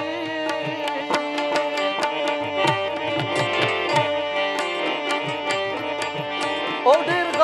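Instrumental Pashto folk music: harmonium chords held under a rubab's quick plucked notes, with tabla strokes keeping a steady beat.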